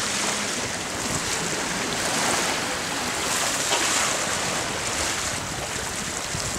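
Steady rushing hiss of water along the hull of a sailing yacht under way, with some wind.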